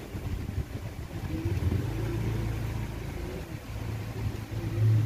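Low steady rumble of an engine running nearby, weakening through the middle and swelling again near the end.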